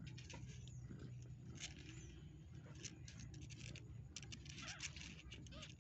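Newborn kittens suckling at the mother cat's teats: faint quick wet clicks and smacks, with a few thin high squeaks near the end.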